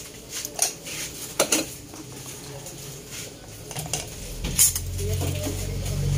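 Metal utensil clinking against a metal cooking pot of boiled clams, in a few scattered sharp clinks. A low rumble rises underneath in the last couple of seconds.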